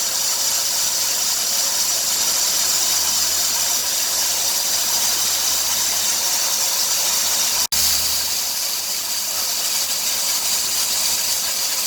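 2003 Dodge Grand Caravan's 3.3-litre V6 running with a steady high hiss over a low engine hum; the owner suspects the serpentine drive belt is making the noise. The sound cuts out for an instant about eight seconds in.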